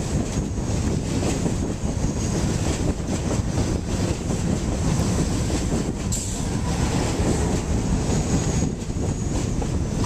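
A New York City subway 7 train of R62A cars rolling past along the platform: a steady rumble of steel wheels on rail.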